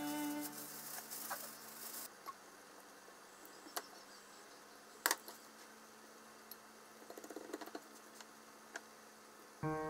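Background music fades out about two seconds in, leaving scattered light clicks and taps of wooden chopsticks against a glass bowl and a plate as minced chicken is scooped onto cucumber. There is one sharper click about halfway and a flurry of small ticks later on. Piano music starts again just before the end.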